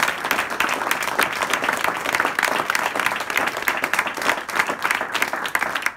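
Audience applauding: many hands clapping at once, a dense, steady patter of claps at the close of a live song.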